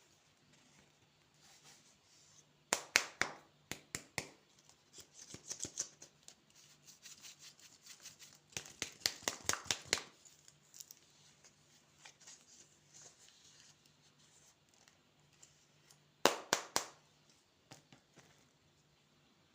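Candy packaging being handled and opened: plastic wrappers crinkling and tearing in several bursts of sharp crackles and snaps, with quieter rustling between them.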